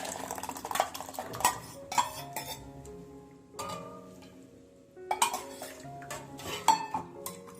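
A utensil clinking and scraping against a pot while dal water is stirred into rasam: a series of sharp clinks with a quieter pause in the middle. Soft background music plays underneath.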